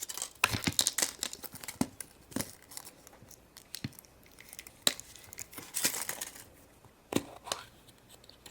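Foil wrapper of a chocolate surprise egg being torn and crinkled open by hand, in irregular bursts of crackling.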